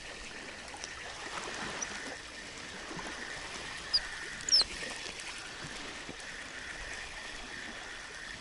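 Steady rushing background of wind and lapping water, with two short, high bird chirps about four seconds in.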